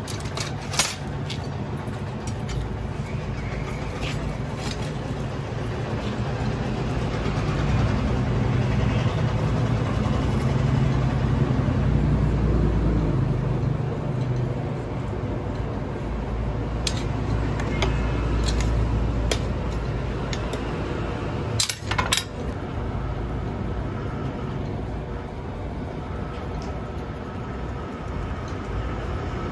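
Charcoal forge fire under forced air: a steady low rush that swells for several seconds from about 8 s in, as a knife blade is heated for hardening. Scattered clinks of the tongs and blade against the firebricks, the sharpest about 22 seconds in.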